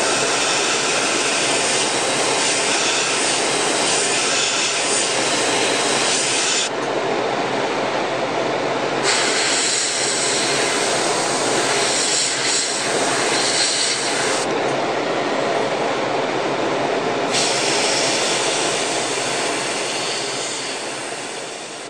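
Airbrush spraying paint in three long hissing bursts of several seconds each, with short pauses between, over a steady motor noise that dies away near the end.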